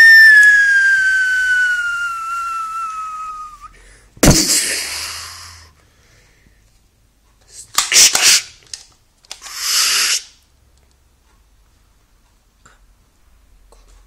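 Handgun sound effects: a long falling whistle-like tone that fades out, then a sharp shot-like crack about four seconds in with a hissing tail. Later comes a quick cluster of clicks and a short hiss.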